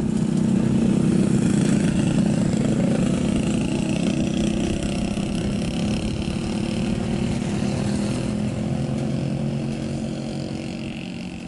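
Road compactor's engine running steadily, fading out near the end.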